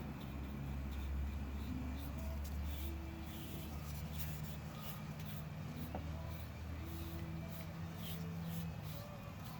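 Paintbrush strokes laying Awlgrip paint onto repaired fiberglass spots: short, repeated scratchy strokes, over a steady low hum.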